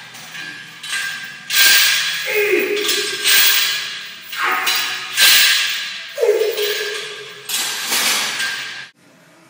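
Steel chains hung on a loaded barbell rattling and clanking as they pile onto and lift off the floor with each fast bench-press rep, a burst of metallic clinking about every second. It cuts off suddenly near the end.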